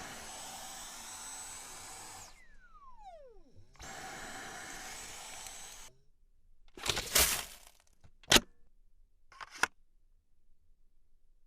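Cordless stick vacuum motor running with a steady whine, then switched off, its pitch falling as it spins down. It is switched on again briefly and off once more. A short rustling burst and two sharp plastic clicks follow near the end.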